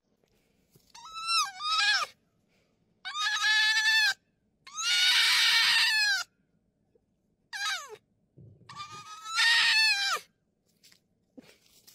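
Red fox screaming: about five drawn-out high-pitched calls that drop in pitch at their ends, the longest and loudest in the middle, with a short falling yelp before the last one.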